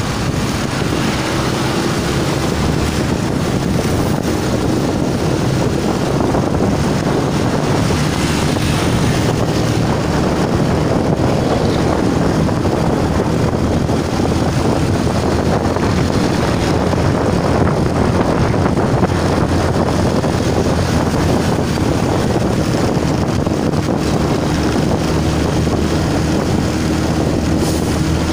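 Wind noise on the microphone of a motorcycle travelling at road speed, with the motorcycle's engine running steadily underneath.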